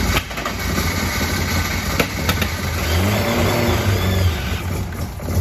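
Turbocharged Ford Pinto engine running just after its first start, through a freshly made stainless steel exhaust, with a few sharp clicks. The revs rise and fall a few times from about three seconds in.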